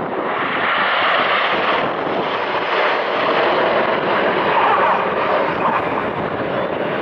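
Red Arrows formation of BAE Hawk T1 jets flying past, their jet engines making a loud, steady rushing noise.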